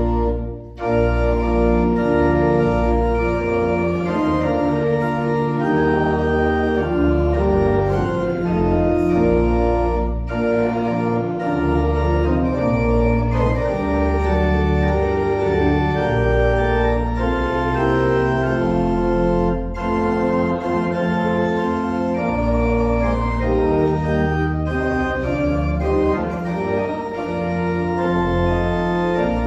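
Church organ playing sustained full chords that change every second or so, with a brief break in the sound just under a second in.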